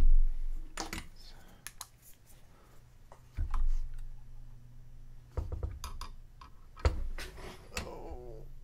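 Scattered clicks and knocks of hands handling an opened floppy disk drive mechanism and a small flashlight, with a sharp knock right at the start and a few more spread through.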